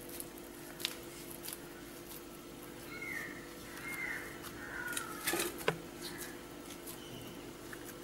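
Quiet kitchen handling: a small oil cup and a wooden noodle press worked over a steel bowl, with a couple of light knocks a little past halfway, over a steady hum. A few faint high chirps come around three to four seconds in.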